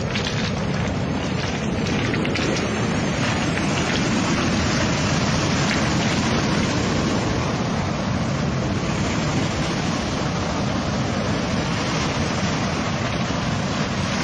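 Steady rushing of surf and wind at the shore, with wind buffeting the microphone. A few faint clicks come in the first few seconds.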